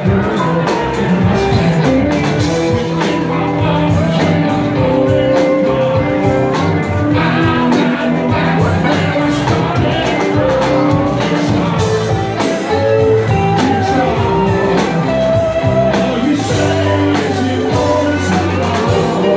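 Live rock band playing: electric guitars, drum kit and keyboards.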